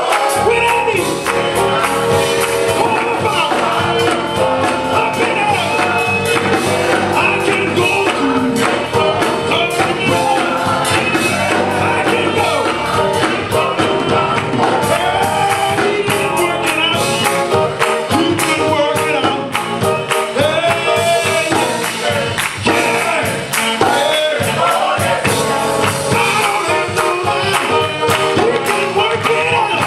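Live gospel song: a men's choir singing together with music, over steady rhythmic hand-clapping.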